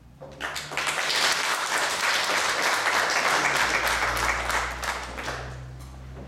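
Audience applauding, starting about a third of a second in and dying away toward the end.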